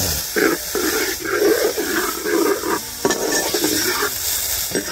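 Chicken pieces in masala and ghee sizzling in a cooking pot as water is poured in and stirred through, with a short break about three seconds in.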